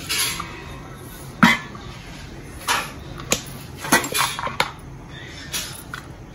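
Stainless-steel hand press and idli plate clinking and knocking, metal on metal, as rice-flour dough is pressed out into noodles: about eight sharp, irregular knocks and clinks.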